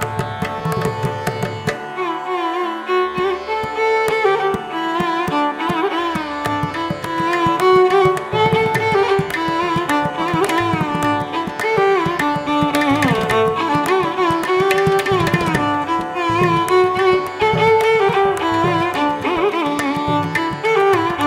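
Instrumental background music in an Indian classical style: a melody that slides between notes over a steady drum beat.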